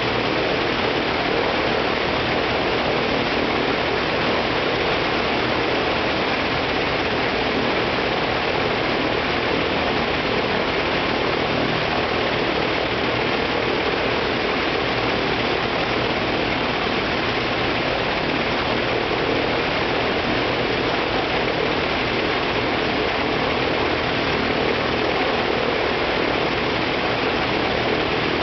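Shvetsov ASh-82T fourteen-cylinder twin-row radial engine of an Il-14T running steadily on the ground, its propeller turning, with no change in speed.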